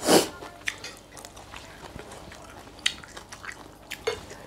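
A person eating raw blue swimmer crab: a loud wet slurp right at the start, then scattered wet smacks and clicks of sucking and chewing the meat out of the shell.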